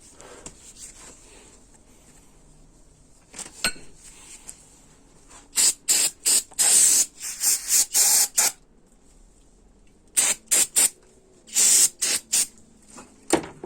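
Short bursts of spraying hiss in two quick clusters, as the input shaft's seal grooves are cleaned before new Teflon seals go on.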